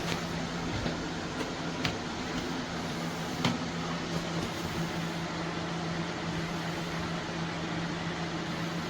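3D printer running: a steady fan whir and motor hum, with two short clicks about two and three and a half seconds in.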